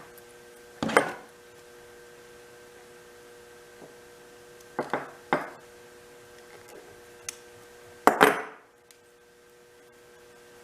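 Sharp clicks and clatters of hand tools being handled on a workbench: about five separate strikes, the loudest a double clatter near the end, over a steady faint hum.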